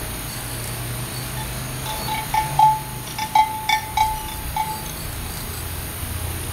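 Light metallic ringing: a series of about eight short bell-like clinks over two and a half seconds, with the loudest a little past the middle.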